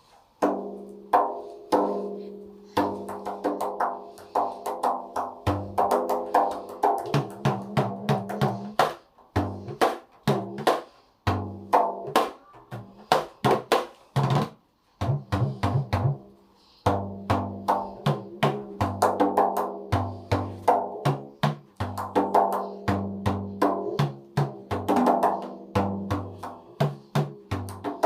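Dikir barat rebana drums with pauh-wood bodies, the large rebana ibu fitted without rotan sedak and the smaller rebana anak with only a thin rotan, hand-struck in a fast rhythmic pattern. Deep booming strokes mix with higher ringing slaps, with a few short breaks in the playing.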